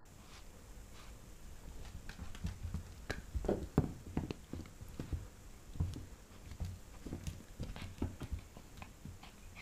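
Pembroke Welsh corgi puppy biting and tugging at a rope toy close to the microphone: an irregular run of soft knocks, thumps and rustles, busiest and loudest around the middle.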